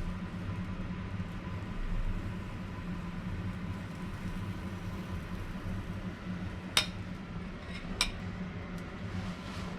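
Two sharp clinks of dishware or utensils, the first the loudest, over a steady low hum in a kitchen.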